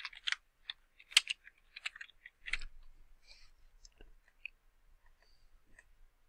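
Computer keyboard keys clicking as a file name is typed: a quick, irregular run of keystrokes through the first three seconds, then only a few scattered clicks.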